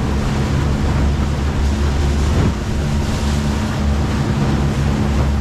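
An engine running steadily, with wind rushing over the microphone and water noise.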